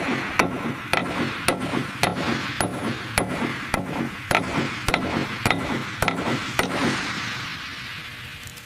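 A hammer striking metal in a steady run of blows, about two a second, each with a short ring. The blows stop about seven seconds in and the sound fades away.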